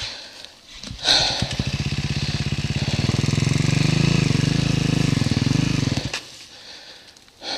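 KTM dirt bike engine firing up about a second in and running hard and steady for roughly five seconds, then cutting out abruptly.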